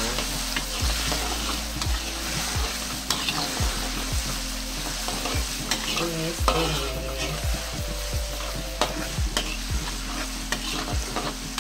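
Minced ginger sizzling in hot oil in a wok, with a spatula stirring and scraping it and frequent sharp clicks as it strikes the pan.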